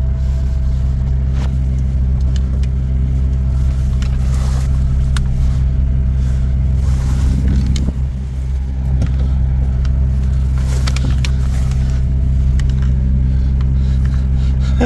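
Jeep engine running steadily under load as it is driven into a snowbank, a low even hum with a few faint scattered clicks.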